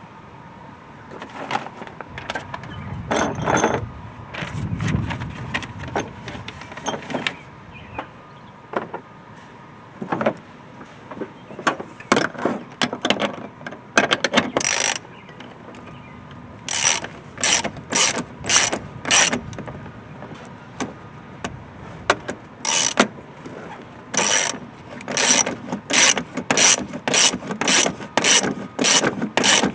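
Hand ratchet wrench tightening down bolts, its pawl clicking in short back-and-forth strokes: irregular at first, then a steady run of about two strokes a second in the second half.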